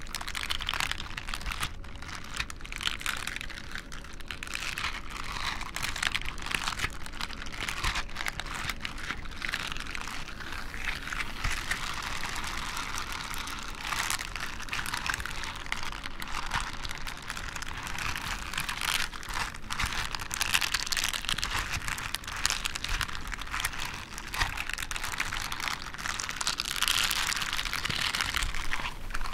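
A leather glove and a textured, nubbed rubber glove are rubbed and flexed against each other. The sound is a continuous scratchy rustling dotted with many small clicks and crinkles.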